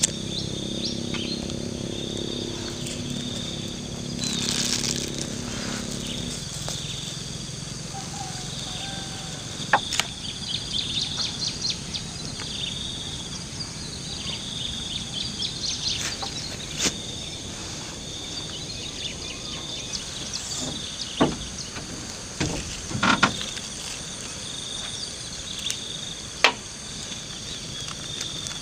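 Steady chorus of chirping insects with a high pulsing trill, over a low hum during the first six seconds. A few sharp knocks and taps come through at intervals.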